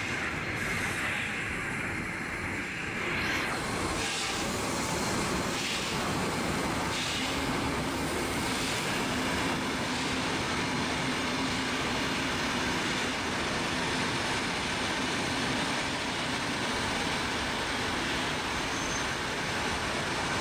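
Victorian Railways Y-class steam locomotive Y112 passing slowly, with a few slow puffs of steam in the first several seconds, then its train of wooden carriages rolling steadily past on the rails, with wind on the microphone.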